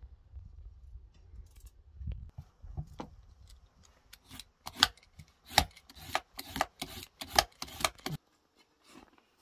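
Kitchen knife slicing a raw beetroot on a wooden cutting board: sharp knife strokes against the board, about two a second, come in a run from about halfway through and stop abruptly near the end.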